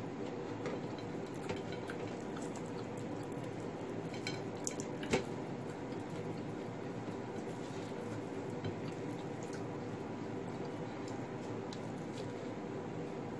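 Quiet eating by hand: fingers picking rice and fried fish off a ceramic plate, with faint small clicks and squishes over a steady background hum, and one sharper click about five seconds in.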